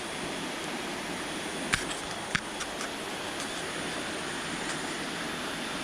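Steady rushing of river water over rocks, with two short sharp clicks a little under two seconds in.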